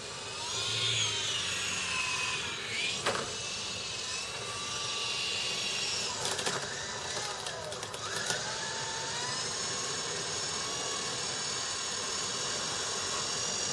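Electric motors and rotors of an E-sky Big Lama coaxial RC helicopter whining. The pitch swoops up and down as the throttle changes, with a few sharp ticks about three seconds in and again around six to eight seconds. Then it settles into a steady whine.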